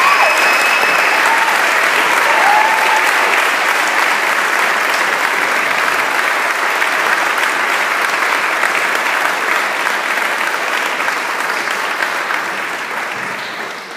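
Audience applauding steadily. The clapping dies away near the end.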